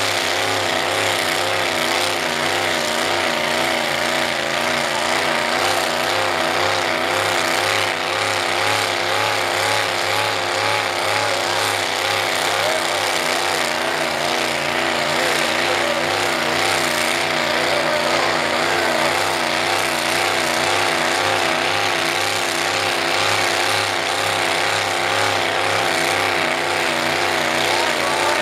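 A mud truck's Cadillac engine held at high revs with its tires spinning in deep mud, stuck in the bog pit; the engine note wavers steadily up and down in pitch without letting off.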